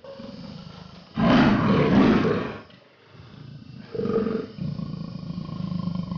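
A big cat roaring: one loud roar about a second in, then after a short pause a second, longer and quieter call.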